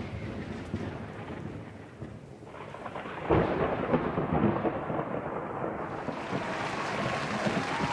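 Deep rumbling over a steady rushing noise, growing louder about three seconds in.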